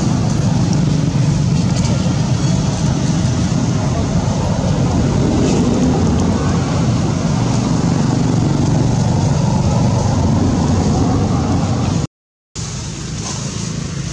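Steady, loud low rumbling background noise, even and unbroken, that cuts out for about half a second near the end.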